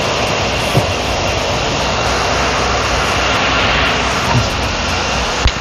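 Steady loud rushing noise, like a fan or blower, with three short, light knocks: about a second in, near four seconds and just before the end.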